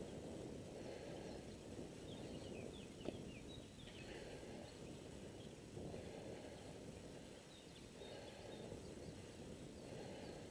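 Faint outdoor noise: a low rushing sound that swells and fades every couple of seconds, with a few short high chirps around three to four seconds in and a single sharp click about three seconds in.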